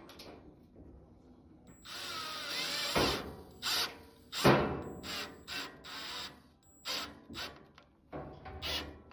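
Cordless power driver running for about a second, driving screw bolts into a steel cabinet's back panel, followed by a string of irregular knocks and clicks.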